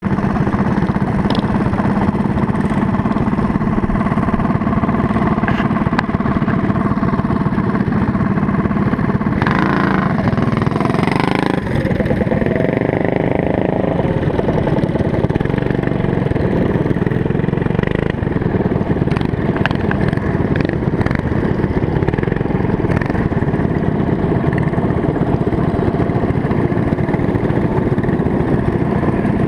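Small engines of motorized trikes running steadily, with one revving up and back down about ten seconds in.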